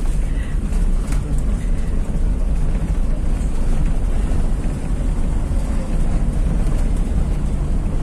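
Small car driving slowly along a street, heard from inside the cabin: a steady low rumble of engine and road noise.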